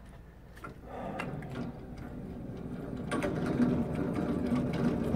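Motorized target carrier running on its overhead track, pulling a paper target back in from downrange. Its sound comes in about a second in and grows louder.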